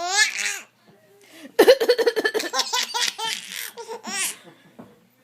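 Baby laughing hard: a brief giggle at the start, then, after a short pause, a long run of quick laugh pulses that ends in a high squeal near the end.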